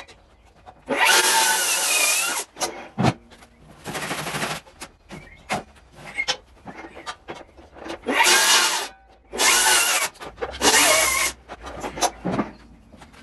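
A power tool working oak in about six short bursts of roughly a second each, its pitch wavering under load, with knocks and handling clicks between the bursts.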